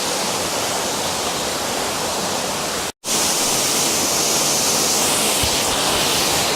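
Waterfall rushing steadily into its pool. About halfway it cuts out for a split second, then resumes slightly louder.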